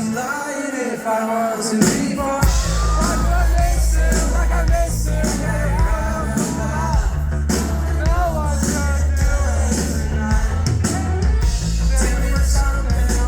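Live pop-rock band playing, with a pitched melodic line over guitars and drums. The bass and kick drum drop out for about the first two seconds, then the full band comes back in.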